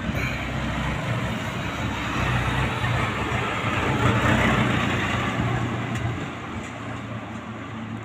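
Steady engine and road noise of a passing motor vehicle, swelling about halfway through and easing off near the end.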